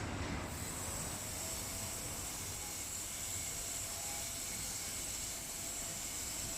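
Tunnel car wash machine running with a steady hiss that comes up about half a second in.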